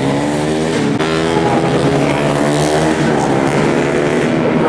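Several 150cc underbone racing motorcycles, single-cylinder four-stroke engines, revving hard on track. Their overlapping engine notes rise and fall in pitch as they accelerate and shift.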